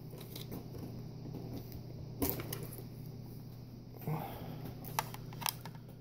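Faint handling noise of wiring and a small plastic LED flasher controller being pulled up and moved about: a few light clicks and rustles, the sharpest about two seconds in, over a steady low hum.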